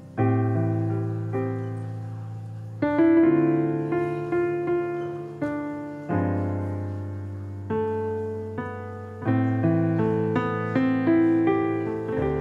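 Slow, gentle piano music: chords struck about every one to two seconds, each left to ring and fade.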